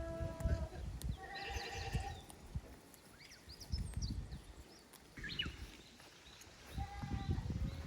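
Goats bleating: three calls, one at the start, one about a second and a half in, and one near the end. Small birds chirp between the calls, over the low rumble of wind on the microphone.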